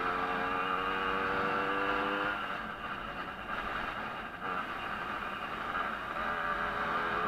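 Small two-stroke moped engine of a Jawa 50 race bike running at high revs with a steady note; about two seconds in, the steady note breaks up into a rougher, somewhat quieter sound as the throttle comes off for a turn.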